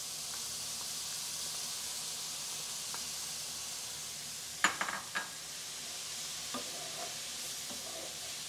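Leek, celery and mushroom stems sizzling steadily in a non-stick frying pan as soaked red lentils are scraped in and stirred with a wooden spoon. A quick cluster of sharp knocks from the wooden spoon comes a little under five seconds in, with a single smaller knock about a second and a half later.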